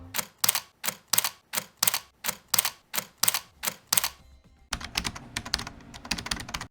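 Keyboard-typing clicks, about three evenly spaced keystrokes a second, then after a short pause a faster, lighter run of keystrokes.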